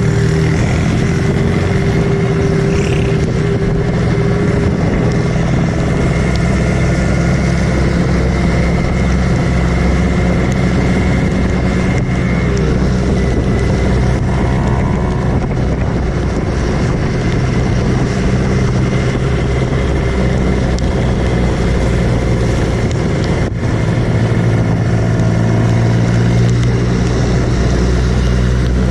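Kawasaki Ninja two-stroke motorcycle engine running under way, its pitch holding fairly steady and shifting slowly with the throttle, over wind and road noise. There is a brief drop in level about 23 seconds in.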